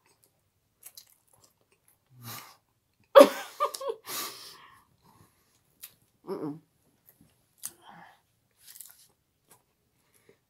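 Two people chewing and biting into buns without using their hands, with scattered small mouth clicks. A short low hum comes about two seconds in and another around six seconds. The loudest sound is a sudden breathy vocal burst just after three seconds.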